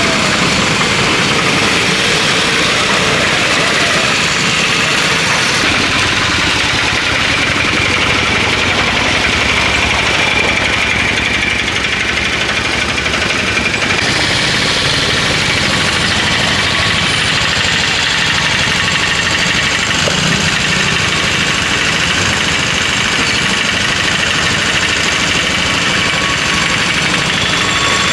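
Three-wheeler autorickshaw engine running, a loud, steady engine drone throughout.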